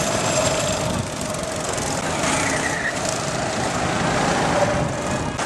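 Go-kart engines running as karts lap the circuit, with a steady engine drone and a brief higher-pitched engine whine a little over two seconds in.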